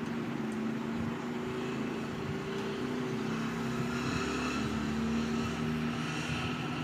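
An engine running steadily nearby, a continuous hum whose pitch wavers slowly.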